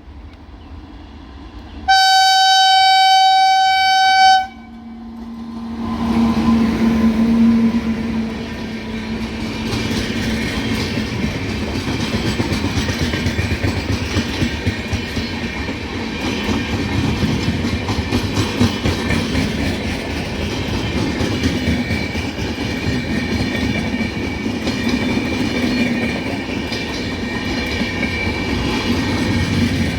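A train horn gives one long, loud blast of about two and a half seconds. Then the train passes close by: a steady rumble of the locomotive and wagons, with wheels clattering on the rails, that starts a second or so after the horn and carries on.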